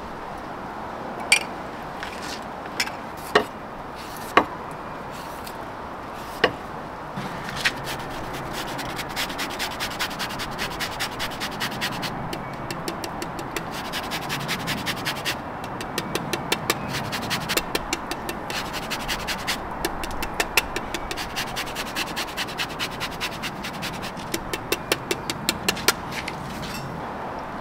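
Fresh horseradish root rasped on a hand grater in rapid, even strokes, several a second, starting about seven seconds in. A few sharp knocks come before the grating starts.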